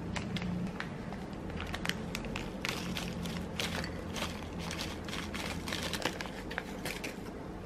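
Foil-lined plastic snack wrapper crinkling, and a crunchy granola bar snapping and crumbling as it is broken into pieces by hand, giving a quick irregular run of dry crackles.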